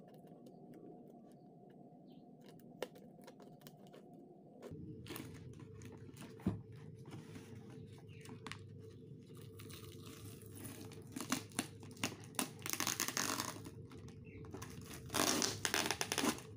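Hands handling a cardboard parcel and tearing off its plastic wrap and packing tape: crinkling and rustling, with louder tearing bursts in the second half and the loudest just before the end.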